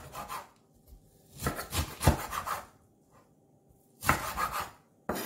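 Kitchen knife slicing blanched chard on a wooden cutting board: quick strokes knocking through the leaves onto the board, in short runs with pauses of about a second between them.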